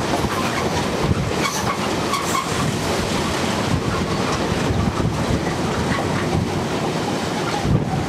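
Covered hopper wagons of a freight train rolling past at speed: a steady rumble of wheels on rail with rapid clicking, and a single louder knock shortly before the end.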